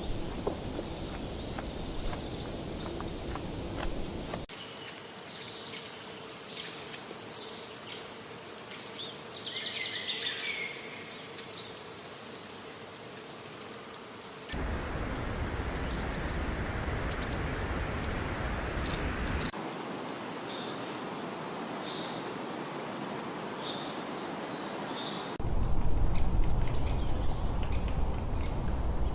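Forest ambience in several spliced pieces: birds chirping and whistling over a steady background hiss, the background changing abruptly every few seconds.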